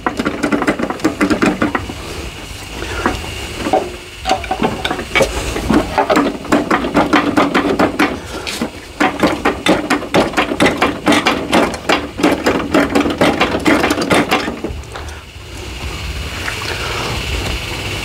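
Rapid metallic knocks, several a second, from a hammer tapping on a lawnmower engine's flywheel while it is levered with screwdrivers to pop it loose. The knocking stops about three-quarters of the way through, and a low steady hum follows.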